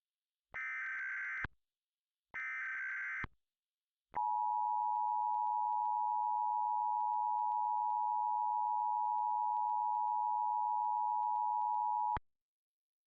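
Emergency Alert System tones: the last two one-second bursts of the digital SAME header data, then the two-tone EAS attention signal (853 and 960 Hz together) held steady for about eight seconds before cutting off abruptly.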